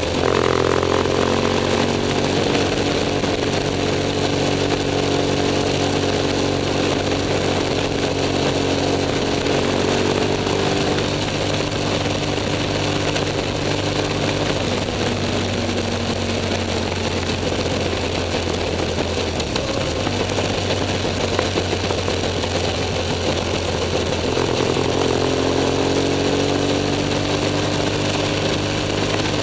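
BMW F 800 S parallel-twin engine running under way, held at a steady pace for most of the stretch and pulling up in revs about four-fifths of the way through, with wind and tyre noise.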